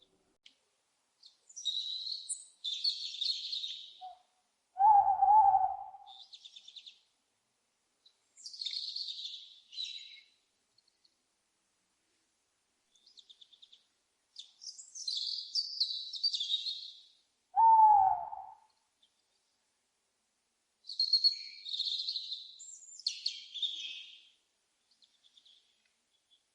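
Owl calls: two loud single hoots, each falling in pitch, about five seconds in and again near eighteen seconds. Between them come repeated clusters of higher-pitched chirping bird calls.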